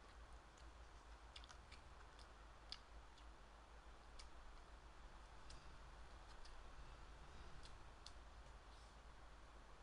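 Near silence: faint room hiss with scattered, irregular light clicks, the sharpest a little under three seconds in.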